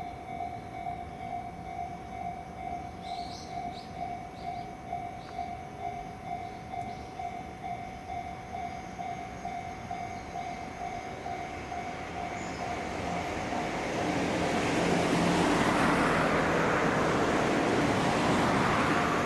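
Japanese level-crossing warning bell ringing in an even, repeated two-per-second ding, then a JR 313-series electric train coming up and running past, its rumble and wheel noise growing from about 13 seconds in and drowning out the bell.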